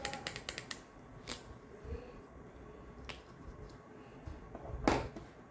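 Small clicks and knocks of makeup being handled as a mascara tube is opened. A fast run of clicks, about nine a second, stops within the first second. A few single clicks follow, then a louder short knock near the end.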